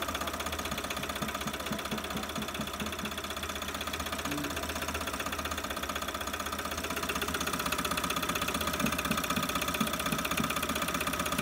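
Tata Ace Gold BS6 two-cylinder diesel engine running steadily with an even diesel clatter, just after a full overhaul with new pistons, rings and liners: it is being run in to free up.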